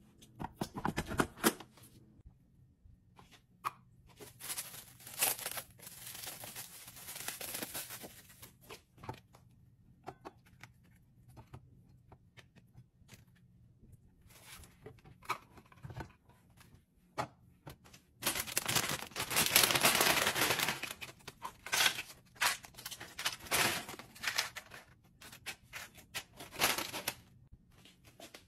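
Hands plating snacks: clicks and knocks of a plastic plate and tubs, with stretches of rustling, crinkling noise in three bursts, the loudest about eighteen to twenty-one seconds in.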